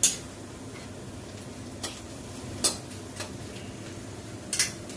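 Metal ladle stirring food in a wok over a steady frying sizzle, with a few sharp clinks of metal on the pan.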